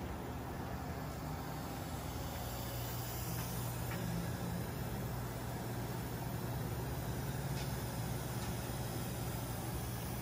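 Steady low electrical and motor hum of a powered-up Balestrini PICO CN round end tenoner and mortiser, with a few faint clicks.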